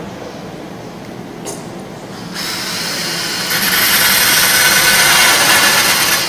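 Cordless drill drilling into a tube clamped in a vise: a hiss that starts about two and a half seconds in, grows louder about a second later and cuts off suddenly at the end.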